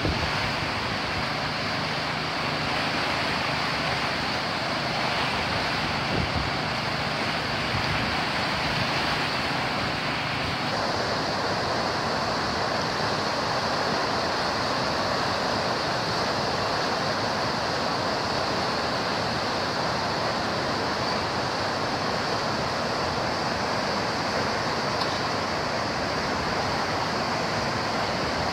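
Reservoir water pouring through an open sluice gate into a canal and churning into white water: a steady rush whose tone shifts slightly about ten seconds in.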